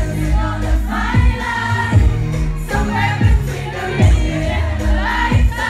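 Live pop song with a female lead vocal sung over a heavy bass line and a steady kick drum, played loud through the venue's sound system.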